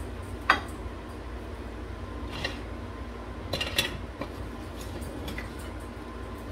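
Kitchen utensils clinking: a sharp click about half a second in, then a rattle of utensils a few seconds in as a wooden spatula is pulled from a crock, over a steady low hum from the range-hood fan.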